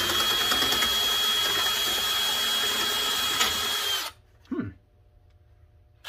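Electric drill driving a Dicfeos double-headed metal nibbler attachment, spun up and run at steady speed with a high whine for about four seconds, then released. A short low sound follows, and another brief trigger pull comes at the end. The nibbler was set to the wrong direction, as the user thinks, so it is not cutting the thin copper sheet.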